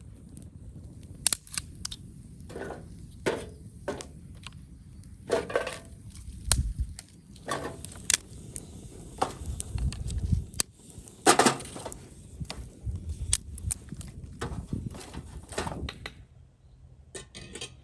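Dry wood sticks crackling and snapping: sharp cracks at irregular intervals over a low rumble. The cracking drops away about sixteen seconds in.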